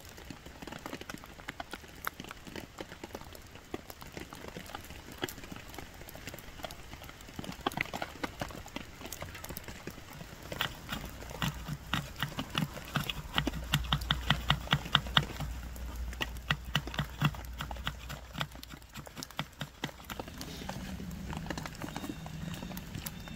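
Scattered light ticks and crackles, then a run of quick, evenly spaced strokes, about four a second for several seconds, as a knife blade shaves thin strips off a dry wooden board to make tinder.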